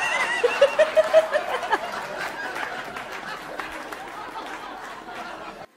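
Several people chattering and laughing, with a quick run of short laughs in the first second and a half; the sound cuts off suddenly near the end.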